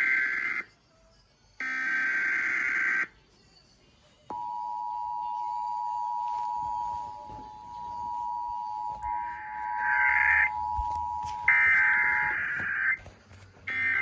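Emergency Alert System test broadcast: two short buzzing bursts of SAME digital header data. About four seconds in, the EAS two-tone attention signal (853 and 960 Hz) starts as a steady dual tone and is held for about eight seconds. More header bursts cut in over the tone near its end and again just before the end, out of their normal order, a sign of a garbled relay.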